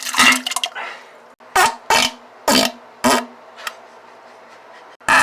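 Fart sound effects of the diarrhea kind: five short blasts in the first three seconds, the last four about half a second apart, then a longer, drawn-out blast starting near the end.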